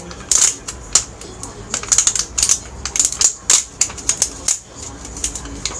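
Clear plastic takeaway container crackling and clicking as fingers work its snap-shut lid open, in quick irregular snaps.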